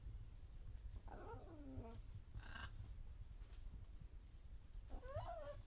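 Green Amazon parrot giving two short, wavering squawks, about a second in and near the end, over a run of short high chirps repeating about twice a second.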